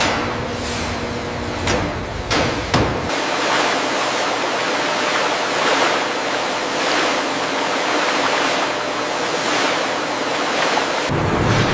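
Steady rushing noise of water, with a few whooshes in the first three seconds.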